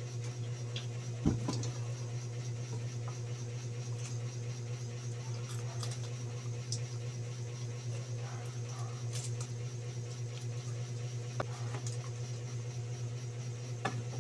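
Close-up eating sounds of a man chewing and picking apart roast chicken with his fingers, with a sharp knock about a second in and a few small clicks later. A steady low hum runs underneath.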